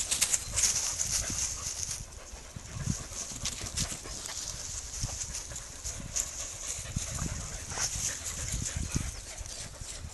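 Dry leaves and grass rustling and crackling under dogs rolling and moving about in the undergrowth, busiest in the first couple of seconds, over a low rumble.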